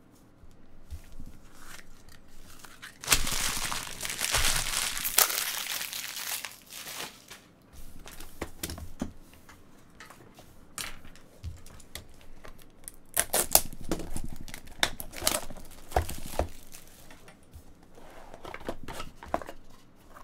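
Plastic shrink wrap being torn and crumpled off a sealed trading-card box. A long stretch of crackly tearing comes a few seconds in and a shorter, more broken one past the middle, with small handling clicks of cardboard between.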